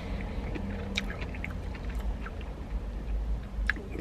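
A person chewing a mouthful of spicy stir-fried noodles, with small wet mouth clicks scattered through, over a steady low rumble.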